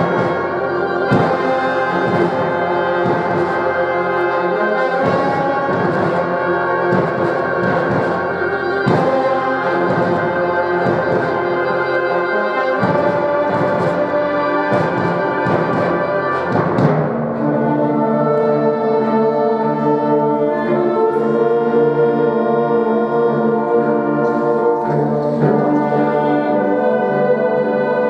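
Brass-led ensemble music: a rhythmic passage with repeated accented attacks, which gives way about two-thirds of the way in to long held chords.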